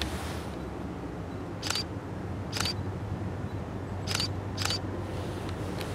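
Distant diesel freight locomotive engine running with a steady low drone. Over it come four sharp clicks, spaced unevenly, with a fainter one near the end.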